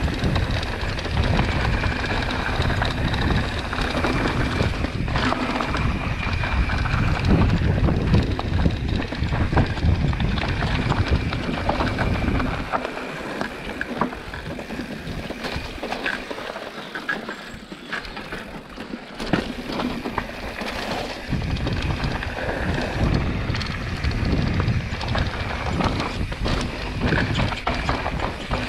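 Scott Ransom enduro mountain bike riding down a rocky dirt trail: wind rumble on the camera mic, tyres running over rock and dirt, and the bike rattling with many sharp knocks. The low wind rumble drops away for several seconds around the middle.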